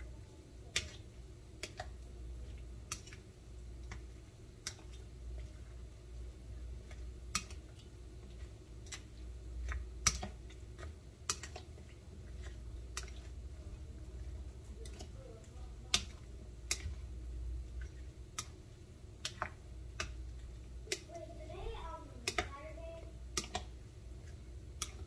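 Plastic rice paddle clicking against an enamel bowl as diced raw fish and chopped vegetables are tossed for ceviche, with a sharp click about once a second over a low steady hum.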